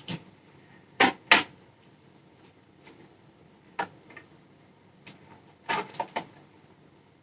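Hard plastic clicks and clacks of a helmet visor being forced into the side hinge of an Icon Airflite helmet, the visor resisting as it goes in. Two loud clacks come about a second in, then single clicks and a quick cluster of clicks a little after five seconds.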